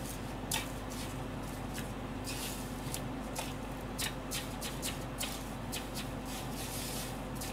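Chopsticks tapping and scraping on a baking tray as chicken cutlets are pressed and turned in panko breadcrumbs: irregular light clicks and brief crumb rustles over a steady low hum.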